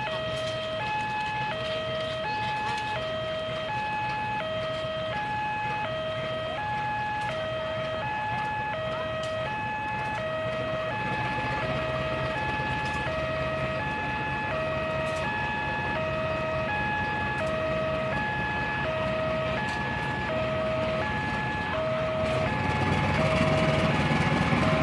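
Railway level-crossing warning alarm sounding an electronic two-tone signal, switching between a lower and a higher tone about once a second, over the low rumble of a diesel locomotive engine that grows louder near the end.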